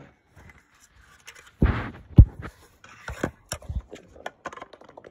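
Objects being handled and set down: a brief scuffing rustle, a sharp thump just after two seconds in, then a run of light clicks and taps.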